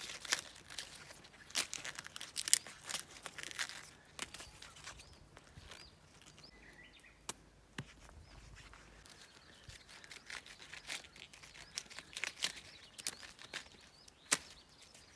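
Aluminium foil crinkling and rustling in bursts of sharp crackles as it is handled and folded, busiest in the first few seconds, sparser in the middle and picking up again near the end.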